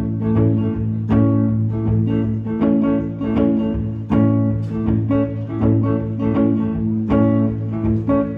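Guitar playing a song's instrumental intro live: plucked notes in a steady rhythm over a sustained low note.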